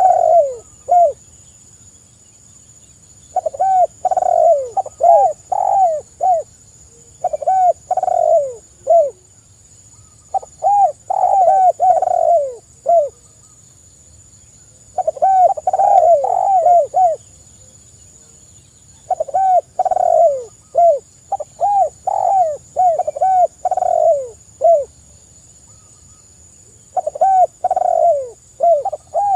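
Spotted dove cooing: phrases of several short, arched coos, with a new phrase every three to four seconds.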